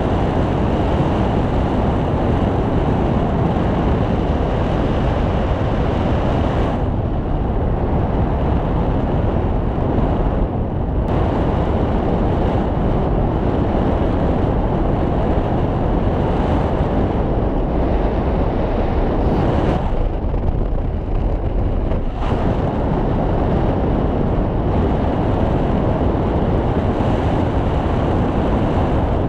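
Airflow buffeting a camera microphone during a paraglider flight: loud, steady wind noise that eases briefly a few times.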